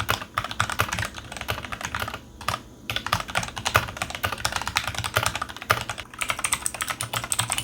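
E-Yooso Z19 mechanical keyboard with Huano switches being typed on fast in a sound test: a dense run of keystroke clacks with a couple of brief pauses. The sound is somewhat dampened by the factory sound-insulating cotton inside the case.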